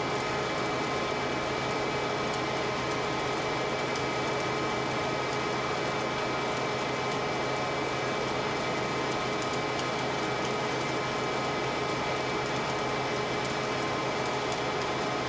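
Industrial boiler furnace firing: a steady roar with several constant humming tones, unchanging throughout.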